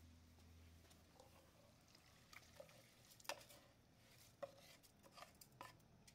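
Faint wooden spoon scraping and knocking against an aluminium pot as wet soaked rice is tipped and scraped into a pan of vegetables in liquid, a few separate light clicks and soft wet sounds.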